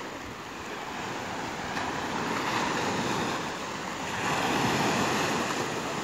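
Small sea waves breaking and washing up a sandy beach, the surf swelling and easing twice: once about two seconds in and again around four and a half seconds in.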